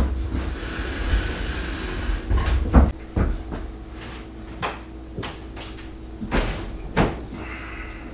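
Electric range being slid out from the wall, a scraping rumble for about the first three seconds, then a string of sharp knocks and clicks as its heavy power cord is handled and the plug is pulled from the wall outlet.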